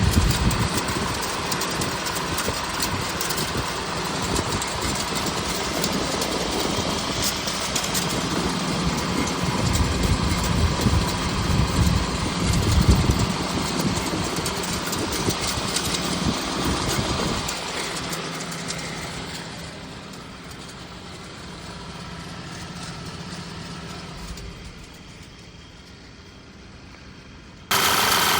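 Volkswagen 2.0T turbocharged four-cylinder engine running, with an unidentified noise that the owner is asking for help with. The sound gets quieter about 18 seconds in and suddenly returns to full level near the end.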